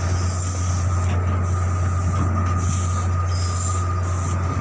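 Steady low machinery drone with a constant thin whine above it.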